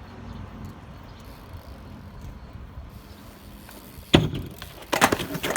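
BMX bike rolling with a steady low rumble, then a hard impact about four seconds in, as of a landing, followed by a run of rattling knocks near the end.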